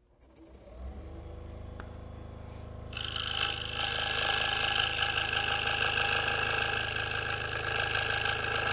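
Hawk G4 scroll saw starting up and running, its blade stroking steadily, then louder from about three seconds in as the blade cuts into thin black walnut.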